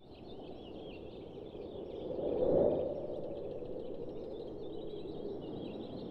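Many birds chirping and twittering together over a low rushing noise that swells briefly about two and a half seconds in.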